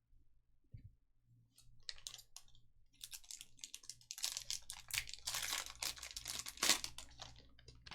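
Foil trading-card pack wrapper being torn open and crinkled. A dense crackling starts a second or two in and is loudest in the second half.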